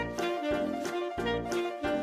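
Background music with a steady beat, about three beats a second, under a melody line.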